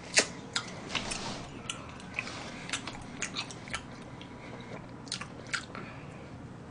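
Mouth sounds of someone chewing a bite of moist chocolate cake with raisins: irregular wet clicks and smacks, most of them in the first four seconds.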